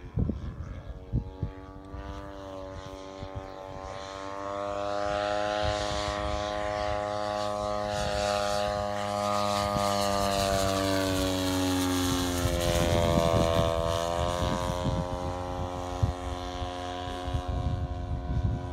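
Large radio-controlled scale model of a Kawasaki Ki-100 warbird making a low fly-by. The steady drone of its engine and propeller grows louder as it approaches, drops slightly in pitch as it passes, and is loudest about two-thirds of the way through before easing off a little.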